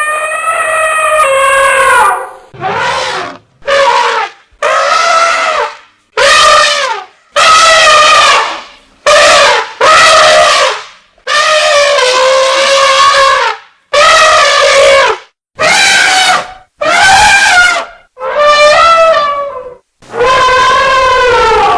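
Elephant trumpeting: about fourteen loud, brassy trumpet calls in quick succession, each about a second long, several sliding down in pitch at the end.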